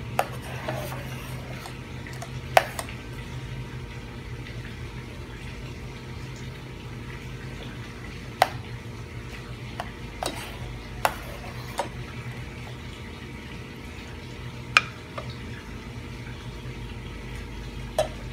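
Tomato sauce being stirred with a ladle in a stainless-steel saucepan over a steady low hiss. The ladle knocks sharply against the pan now and then, and a lid clinks onto the pan near the end.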